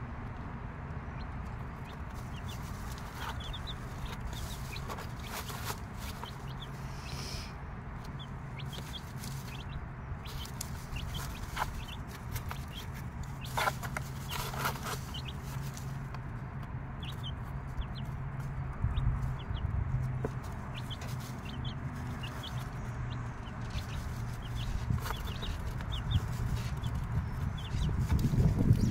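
Six-day-old chicks peeping, with many short high cheeps scattered throughout, and a mother hen clucking low among them. A few brief rustles in the wood shavings come near the middle.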